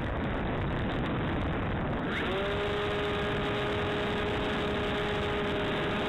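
Wind rushing over the RC plane's onboard microphone, then about two seconds in the electric motor spins up: its whine rises quickly in pitch and settles into a steady tone with several overtones.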